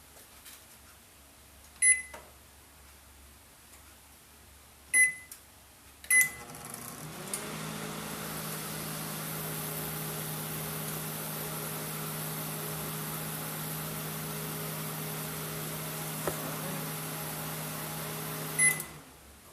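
Panasonic Genius inverter microwave oven: three keypad beeps, then the oven running with a steady hum and fan noise for about twelve seconds, ending with a beep. The owner finds its inverter not putting out enough voltage.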